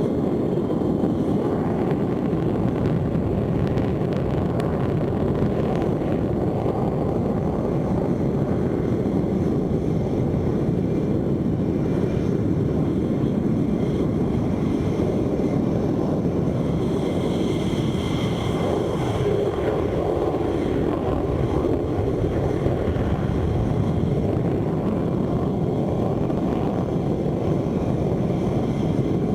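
F-16 fighter jet's engine noise, a steady, loud, low-to-mid rumble. A faint high whine comes in briefly about two-thirds of the way through.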